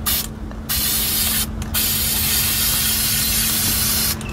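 Aerosol spray-paint can spraying: a hiss starts under a second in, breaks off briefly around a second and a half, then runs again in a longer spray that stops just before the end.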